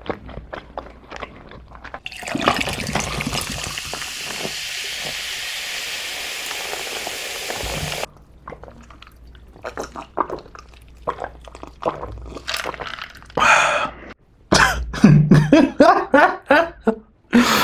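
Water poured into a glass in one steady stream for about six seconds, then gulped down with a series of swallowing clicks. Near the end there are louder vocal sounds, a laugh.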